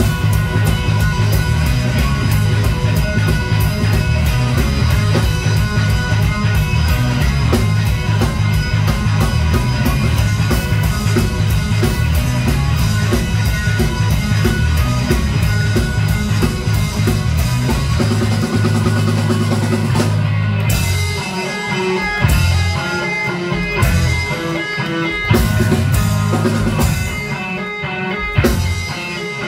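Live electric blues-rock band playing loud: several electric guitars over bass guitar and a drum kit. About 20 seconds in, the bass and drums fall away and the music breaks into sparse, separated hits with short gaps.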